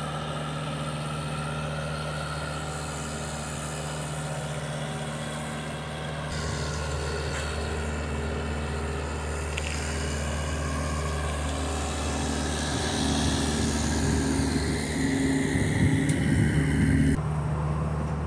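Diesel engine of a parked semi delivery truck running at a steady idle, with the engine sound growing louder and rougher for a few seconds about two-thirds of the way through.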